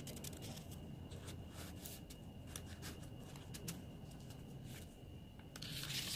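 Paper and card pages of a small handmade junk journal being handled and turned: faint light rustles and taps, with a louder rustle near the end as a page is turned over.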